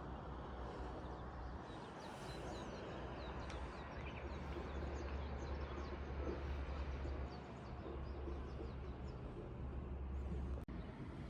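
Small birds chirping over a steady outdoor background noise with a low rumble; the ambience breaks off briefly near the end.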